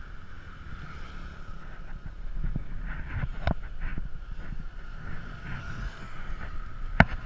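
Motor scooter running along a road, its engine and wind on the bike-mounted camera making a steady rumble with a steady high whine. A few sharp knocks near the end.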